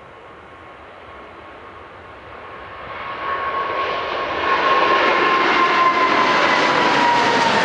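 Boeing 777 freighter's twin GE90 turbofan engines at take-off thrust as the jet lifts off and climbs past overhead: a jet roar that swells over the first four or five seconds and then stays loud, with a fan whine that slowly drops in pitch.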